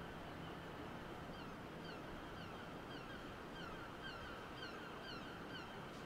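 A bird calling faintly and repeatedly, short falling notes a few times a second, over a steady low background hum.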